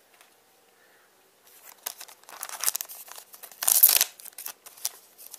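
A foil trading-card booster pack being torn open and crinkled in the hands. It is quiet for the first second and a half, then comes a run of crackling rustles, with the loudest, sharp tear about four seconds in.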